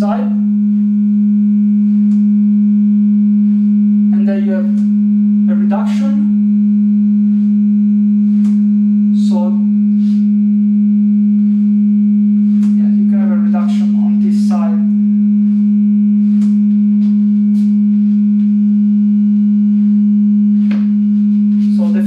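Steady sine test tone at about 207 Hz (G#3) from a tone generator, held at one pitch and level, exciting a room resonance for an acoustic absorber test.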